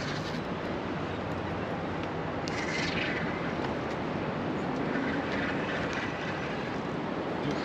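Steady rush of wind and surf, an even noise with no distinct events.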